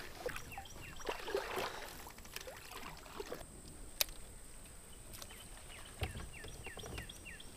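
Quiet water sounds of a kayak paddle dipping and dripping, with a single sharp click about four seconds in. A bird chirps faintly in short falling notes, repeating several times near the end.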